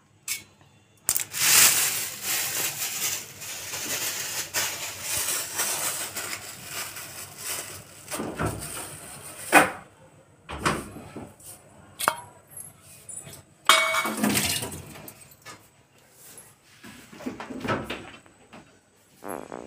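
Kitchen work at a stainless-steel sink: running water hisses for several seconds, then scattered knocks and clinks of steel utensils and a plate being set down.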